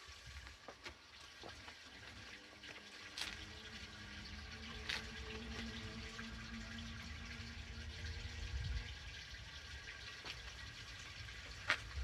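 Quiet background with a low rumble, a few small clicks and knocks from handling the glow-plug lead at the engine, and a faint steady hum from about four to nine seconds in.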